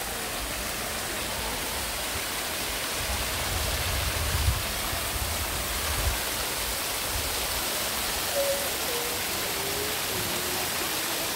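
Waterfall: many thin streams of water falling down a mossy cliff and splashing over rock ledges, a steady rushing hiss, with some low rumble around the middle.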